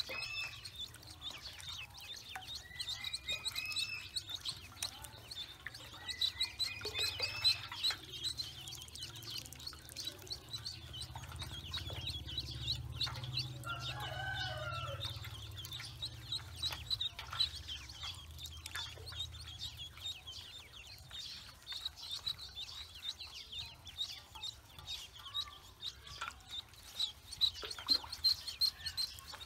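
A group of ducklings peeping constantly in quick, high chirps while paddling and splashing in a basin of water. A few lower calls stand out near the start and about halfway through.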